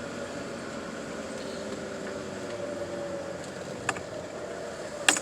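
Car engine running steadily, heard from inside the cabin, with a faint slowly drifting pitch. A sharp click sounds about four seconds in, and a short cluster of clicks comes near the end.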